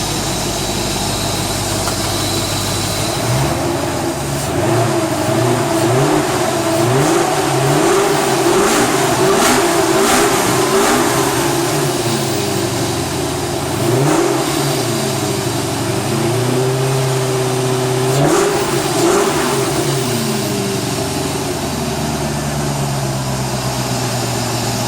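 BMW M60B40 V8 of a 1995 E38 740i idling, then revved up and down repeatedly before settling back to a steady idle near the end. It runs smooth on a newly fitted timing chain tensioner.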